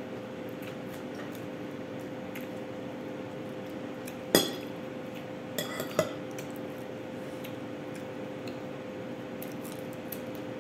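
A metal spoon clinking against a ceramic bowl during a meal: one sharp clink a little under halfway through, then three lighter ones about a second later, over a steady hum.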